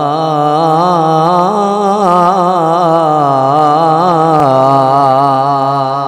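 A man chanting one long, unbroken melismatic phrase into a microphone, his voice wavering up and down in pitch, then fading out near the end.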